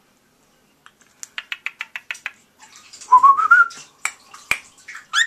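Cockatiel whistling and clicking: a quick run of about seven clicks, then a short whistle rising in small steps. Scattered clicks and a brief rising chirp follow near the end.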